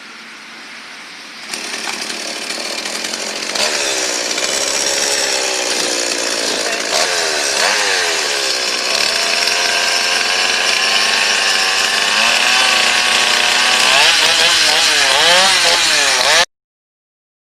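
Two-stroke chainsaw running for a test with its newly fitted chain, revved up and down so its pitch rises and falls, faster toward the end. It cuts off suddenly near the end.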